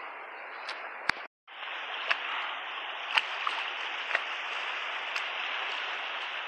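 Steady rush of flowing river water, with a few sharp clicks like rocks knocking together about once a second. The sound cuts out briefly just over a second in.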